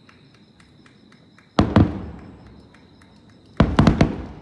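Aerial firework shells bursting: a pair of sharp booms about a second and a half in, then a quick cluster of three or four booms near the end, each trailing off in a rumbling echo.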